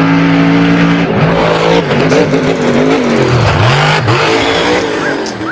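Monster-truck engine sound: a big engine runs steadily, then revs up and down, its pitch dropping deeply and climbing back about three and a half seconds in, before it fades near the end.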